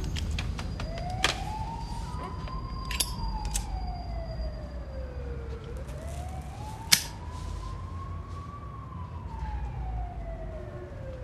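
A siren wailing in a slow rise and fall, about five seconds per cycle, over a low steady rumble, with a sharp click about seven seconds in.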